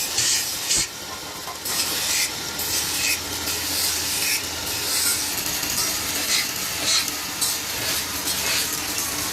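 Repeated short rasping strokes on metal, roughly one or two a second, over a steady low hum.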